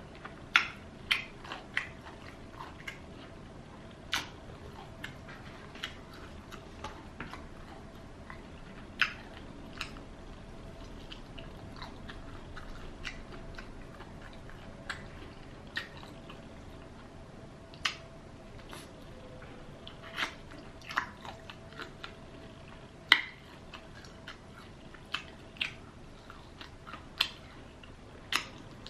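Close-miked eating of Popeyes fried chicken: irregular sharp crunches and chewing clicks, spaced a second or so apart, over a faint steady hum.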